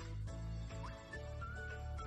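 Background music with a bass line and held notes.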